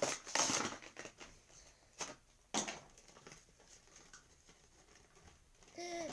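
Rustling and a few sharp clicks from hands handling a toy monster truck and its packaging: a rustle at the start, then two short clicks about two and two and a half seconds in.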